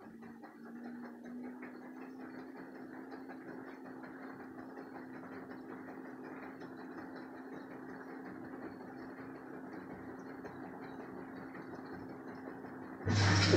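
LG front-loading washing machine running its interim spin, the drum and motor humming a single tone that rises slightly as it comes up to speed and then holds steady. Near the end the water inlet valve opens suddenly with a loud buzzing hum and a rush of incoming water, the start of the rinse fill.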